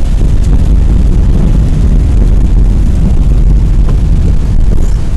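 Steady low rumble of a car driving on a wet, slushy road, heard from inside the cabin: tyre and road noise with engine hum.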